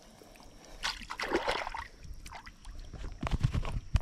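Shallow water splashing and sloshing around wading legs: one splash about a second in, another a little after two seconds, then a quick run of splashes and knocks near the end.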